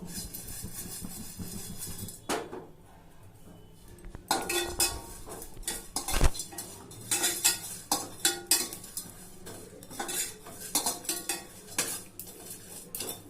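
Metal spoon stirring and scraping whole spices as they dry-roast in a pan, with many irregular clinks of the spoon against the pan, busiest from about four seconds in, and one heavier knock a little after six seconds.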